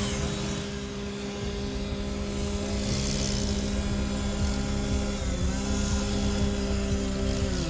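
An engine running steadily at an even pitch, dipping slightly about five and a half seconds in and again near the end.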